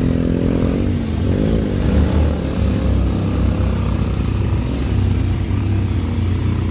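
Motorcycle engine running while riding along a rough dirt trail, its pitch rising and falling in the first couple of seconds, over a heavy low rumble.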